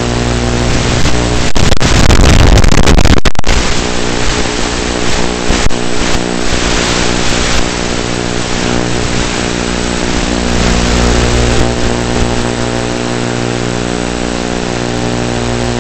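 Steady buzz with hiss from an analog FPV video link's audio channel. A very loud burst of static comes about one and a half seconds in and lasts nearly two seconds.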